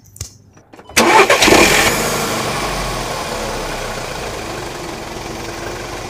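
Car engine starting: it catches suddenly about a second in, then runs steadily, slowly settling and getting quieter.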